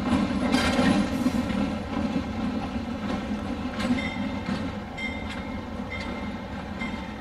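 Diesel road-switcher locomotive running light and moving away: the engine's low rumble fades steadily, wheels click over rail joints, and short high flange squeals come in the second half.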